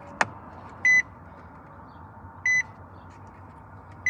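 A single click as the ignition key is turned to on, then the Nissan Titan's in-cab warning chime giving short high beeps, one about every second and a half.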